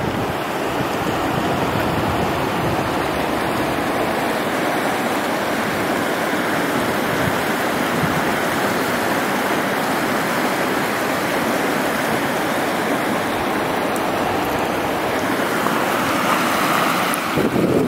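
A shallow stream running over gravel, a steady rush of water.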